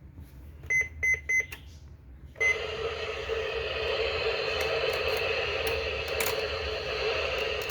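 An electronic unit gives three short high beeps in quick succession, then a fourth; with the fourth, a steady radio static hiss comes on and keeps going.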